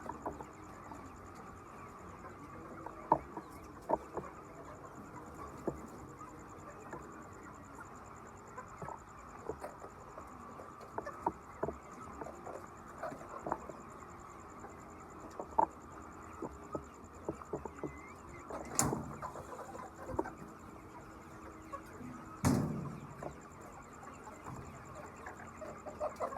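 Chicken house ambience: scattered short clicks and taps over a steady hiss and a faint high whine, with two louder knocks about two-thirds of the way through.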